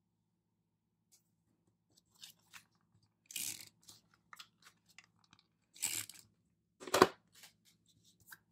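Paper photo prints being handled and pressed down onto a planner page: a run of short crinkling and rustling bursts starting about two seconds in, with one sharp tap near the end, the loudest sound.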